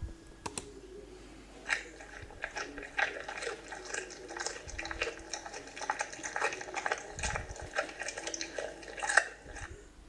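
A cat crunching dry kibble: quick, irregular crunches and clicks of chewing, starting about two seconds in and stopping just before the end.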